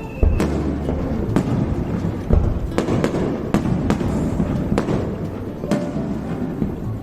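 Fireworks display: aerial shells bursting in a rapid barrage, deep booms mixed with sharp cracking reports about once or twice a second. The heaviest booms come just after the start and about two and a half seconds in.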